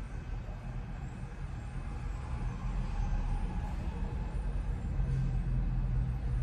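Low, steady background rumble that grows a little louder about halfway through.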